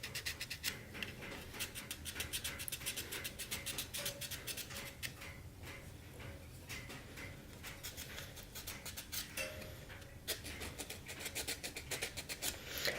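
Needle file rasping on a plastic statue peg in quick, short back-and-forth strokes, thinning a peg that is too thick to fit its base.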